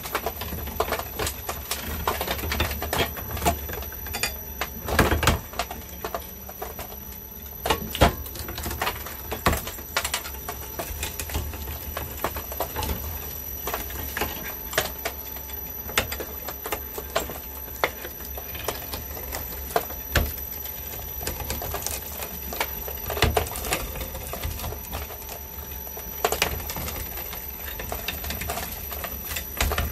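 Twin-shaft industrial shredder with a steady low motor hum, its hooked cutter discs cracking and crunching chunks of pale masonry in irregular sharp snaps. The loudest snaps come about five and eight seconds in.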